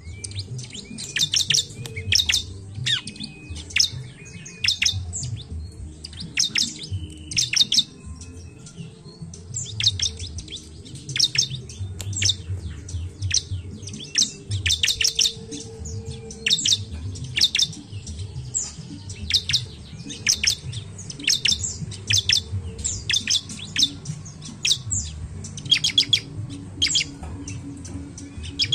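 Bar-winged prinia (ciblek) singing: sharp, high chirps in quick clusters of several notes, repeated about every second, over a low background rumble.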